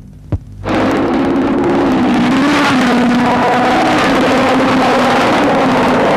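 Single-seater racing car engine running hard at high revs, its pitch wavering slightly. The sound cuts in after a brief dropout with a click in the first second.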